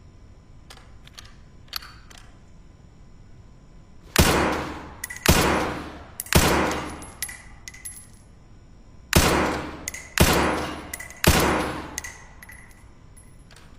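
Springfield M1A rifle firing through a cloth-wrapped suppressor: two strings of three muffled shots about a second apart, with a pause of a few seconds between the strings. Light metallic tinks follow each string, and a few faint clicks come before the first shot.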